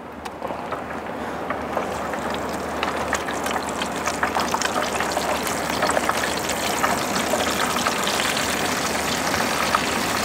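Corn-flour-coated crab pieces deep-frying in hot oil in a wok for a second fry: the oil sizzles with a dense crackle of small pops, growing louder over the first couple of seconds as the pieces go in, then holding steady.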